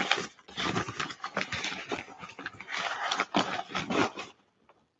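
Crumpled wrapping rustling and crinkling as a ceramic soup bowl is unwrapped by hand, stopping about four seconds in.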